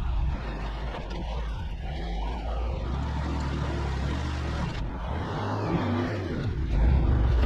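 Delivery truck's engine running, a steady low drone, a little louder near the end.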